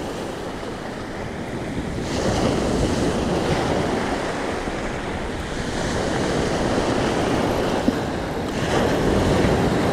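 Surf breaking and washing up a stony beach, swelling louder in several surges, with wind buffeting the microphone.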